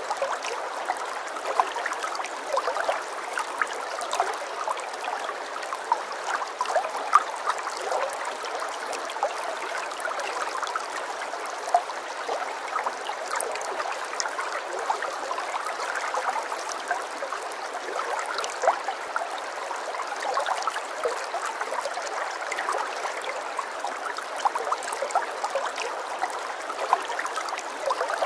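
Running water flowing steadily, with a constant dense spatter of small splashes and no pauses or changes.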